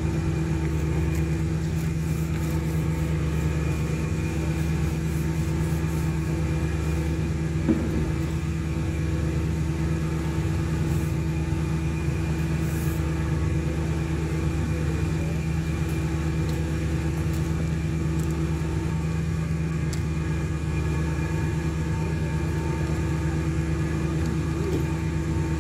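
A steady low machine drone, an engine or motor running without change, with one short click about eight seconds in.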